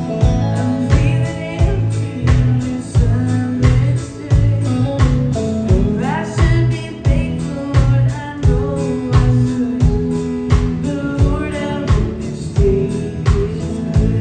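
Live country band playing with a woman singing lead: acoustic guitar, electric bass and a drum kit keeping a steady beat under her voice.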